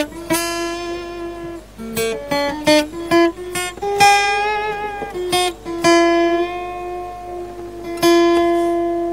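Taylor acoustic-electric guitar picked note by note in short melodic phrases, each note ringing. A final note struck about eight seconds in is left to ring out and fade.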